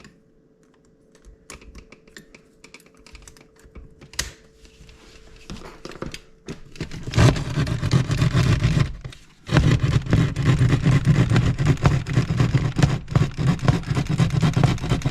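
Small hand saw cutting through drywall, rapid rasping strokes starting about seven seconds in, pausing briefly around nine seconds and then going on steadily. Before that, only faint taps and scratches as the cut is lined up.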